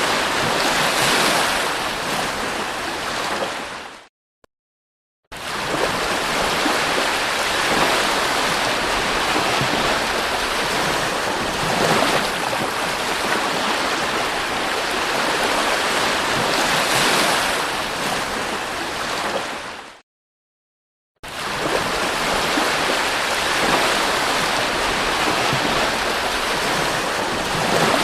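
Sea surf washing onto a beach: a steady rushing that swells and ebbs with the waves. It cuts out completely twice, for about a second each time.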